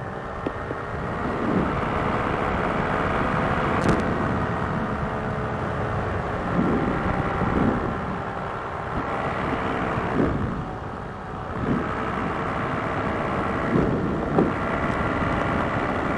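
Paramotor's two-stroke engine and propeller running steadily in cruise flight, dipping a little about eleven seconds in, with the carburetor freshly overhauled.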